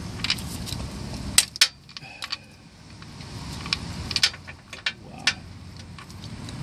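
Scattered light clicks and clinks of small metal parts and tools being handled against the transmission case, the loudest two close together about a second and a half in, over a steady low hum.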